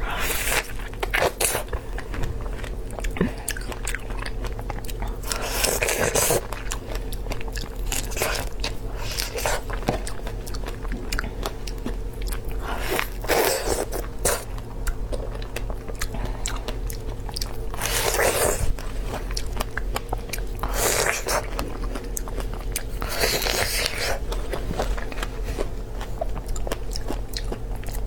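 Close-miked eating of strawberries: a loud bite every few seconds between steady wet chewing, over a low steady hum.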